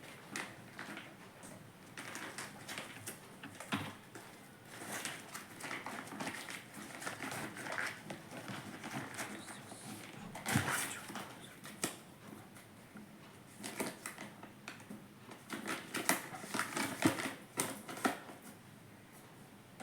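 Handling noise from a cheap wristwatch and its packaging: irregular clicks, taps and short rustles, with a louder cluster about ten seconds in and another near the end.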